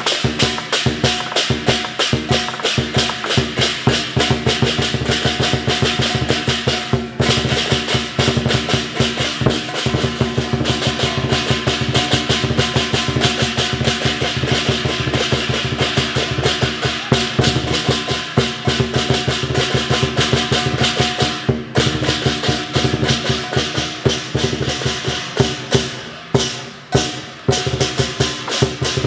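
Chinese lion dance percussion: a big drum beaten in fast, continuous rolls with crashing cymbals and a ringing gong, accompanying a lion dance on poles. Near the end the beating thins out into separate strikes.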